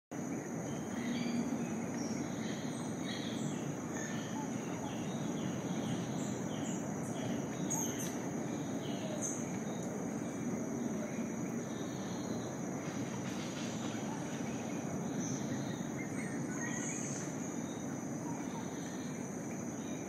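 Tropical rainforest ambience: a steady high-pitched insect drone, with many short bird chirps and calls scattered over it, above a constant low rushing noise.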